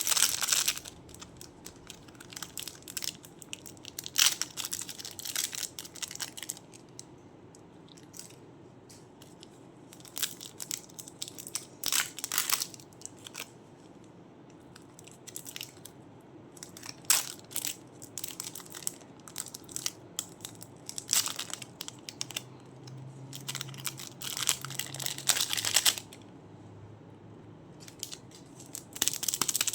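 Crunchy ASMR clay being squeezed and pulled apart by hand, crackling in a dozen or so short, irregular bursts with quieter pauses between them.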